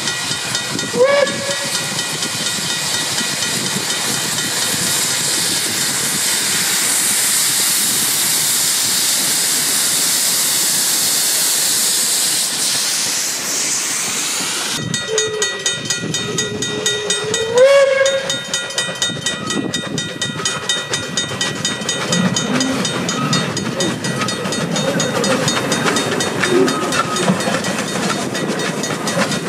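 Steam locomotives working past with a train. A steam whistle blows briefly with a rising pitch about a second in and again a little past halfway, over steady hissing steam. In the later part the carriages rattle over the rails in a quick, even rhythm.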